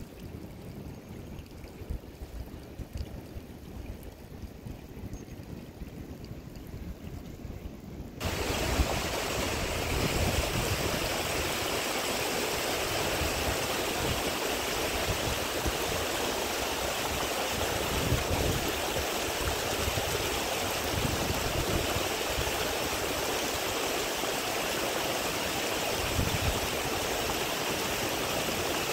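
A low rumble, then about eight seconds in a sudden switch to a steady, loud rush of flowing water.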